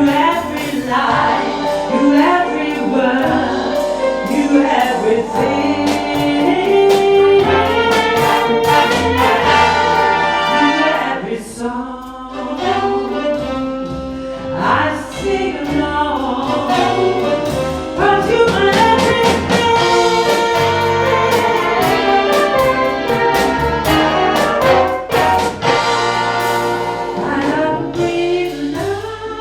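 Live big band playing an instrumental passage, led by the brass section of trumpets and trombones over drums and bass.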